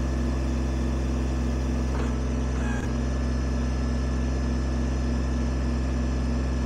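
Kubota BX23S sub-compact tractor's three-cylinder diesel running steadily at a constant engine speed, with a faint knock or two.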